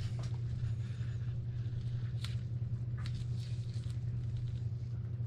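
Faint rustle and a few small ticks of nitrile-gloved hands twisting a painted scintillator crystal against the greased face of a photomultiplier tube, over a steady low hum that is the loudest thing throughout.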